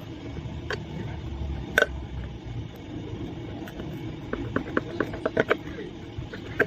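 Sharp clicks and knocks of hand tools and parts being handled during electric-bike hub motor repair work, over a low steady rumble: one loud knock about two seconds in, then a quick run of a dozen or so ticks between four and five and a half seconds in.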